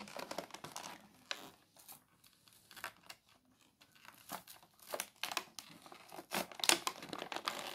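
Clear plastic toy packaging crinkling and crackling as hands pull at it to free a toy airliner from its tray, in irregular crackles that grow louder and more frequent in the second half.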